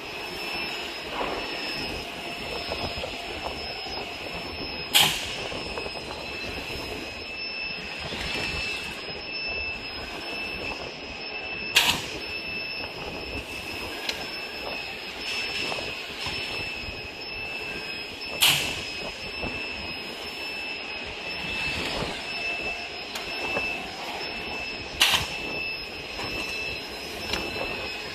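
An automatic jerry-can palletizer machine running, with a steady high whine and clatter of moving cans and parts, broken four times by a sharp, sudden burst at even intervals of about six and a half seconds as its cycle repeats.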